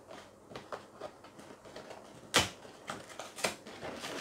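Cardboard cereal box being pried open at the top, its glued flaps pulled loose in a series of sharp snaps and clicks with light rustling between them; the loudest snap comes about two and a half seconds in, another about a second later.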